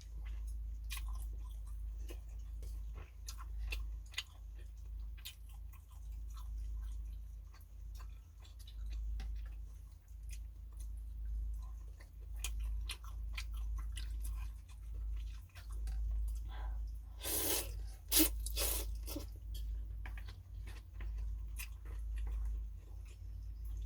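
A person eating phở close to the microphone: chewing, with many small mouth and utensil clicks. A brief run of several louder, noisier sounds comes about seventeen seconds in, over a steady low hum.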